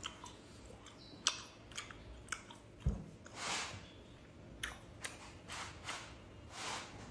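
A person chewing gum: irregular soft, wet mouth clicks and smacks.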